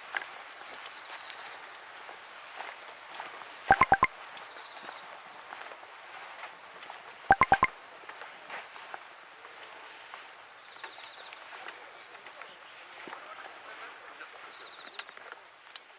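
Outdoor ambience with insects chirping steadily in a high, rapid pulse. Two short bursts of about four sharp clicks each come about 4 s and 7.5 s in, and are the loudest sounds.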